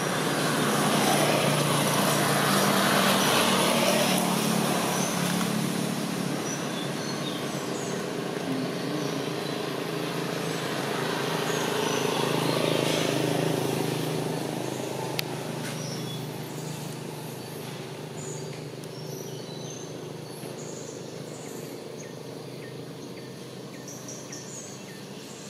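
Motor traffic passing: two vehicles swell up and fade away, about three seconds in and again about twelve seconds in, over the chirping of small birds.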